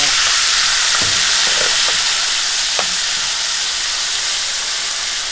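Browned butter sizzling hard in a hot pan, a dense steady hiss, with a few light taps of a utensil against the pan.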